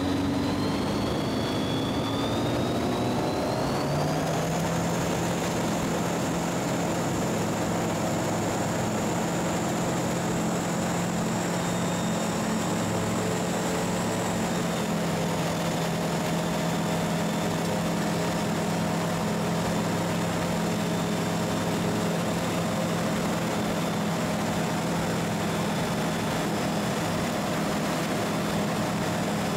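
Propeller aircraft engine droning steadily; its pitch rises over the first four seconds, then holds even.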